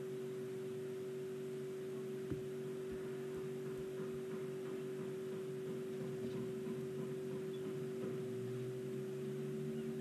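A steady electrical hum: one held mid-low tone with fainter lower tones beneath it, and a faint click about two seconds in.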